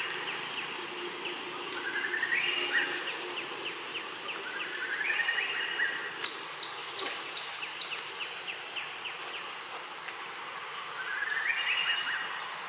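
Forest ambience of steady insect hiss, with a rising trilled call repeated three times, each about a second long, climbing in pitch and ending on a short high note.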